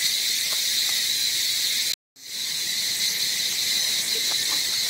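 Steady, high-pitched insect chorus droning without a break, except for a brief total dropout about two seconds in. A few faint, short calls sound beneath it.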